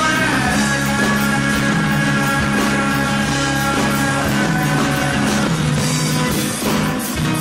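Rock music playing steadily, with held notes over a moving bass line.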